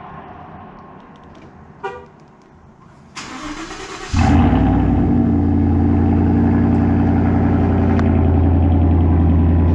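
Ford F-150's 5.0 Coyote V8, fitted with a Borla Atak single-in, dual-out exhaust, cold-starting. After a short tone about two seconds in, the starter cranks for about a second, then the engine catches about four seconds in and settles into a loud, steady idle.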